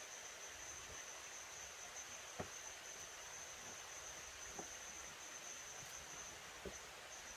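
Night insects, crickets or the like, trilling steadily in one continuous high-pitched tone, with three short sharp snaps about two seconds apart.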